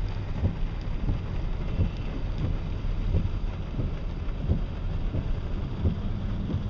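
Wind and rain of a tropical storm, with the wind buffeting the microphone in a steady low rumble and small irregular knocks.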